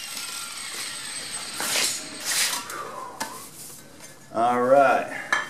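Cut piece of steel tube clinking and scraping against a concrete floor as it is picked up and handled, with separate metal clinks. A faint falling whine dies away in the first second, and a short vocal sound comes near the end.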